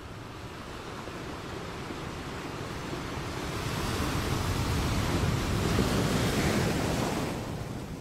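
Ocean surf: the rush of a wave builds over several seconds, is loudest about six seconds in, then eases off near the end.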